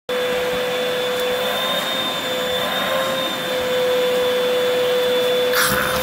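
Vacuum cleaner running steadily through its hose, a whine over the rush of air. Near the end the airflow breaks into irregular sputtering as the puppy puts his mouth and tongue to the hose nozzle.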